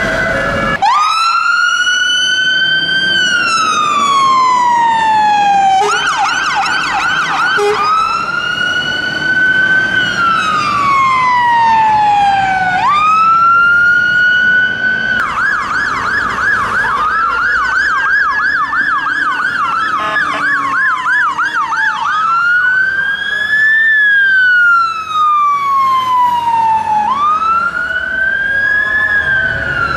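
Fire engine electronic sirens in wail mode: long sweeps that rise quickly and fall slowly over two or three seconds, repeating. In places a second siren on fast yelp overlaps the wail.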